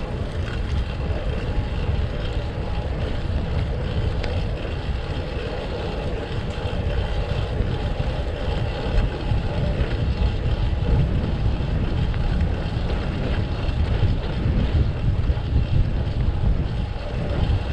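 Wind buffeting the microphone of a camera carried on a moving fixed-gear bicycle, a steady gusting rumble over road and traffic noise.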